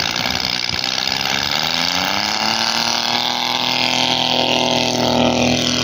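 Engine of a giant-scale RC Curtiss JN-4 Jenny biplane opening up for takeoff: its pitch rises over a couple of seconds, then holds steady at full throttle as the plane lifts off.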